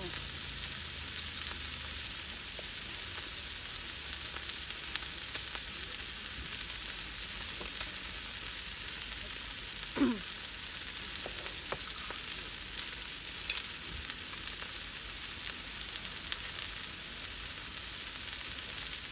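Meat sizzling steadily on a hot grill pan over a portable gas burner. A short falling sound comes about ten seconds in, and a single click a few seconds later.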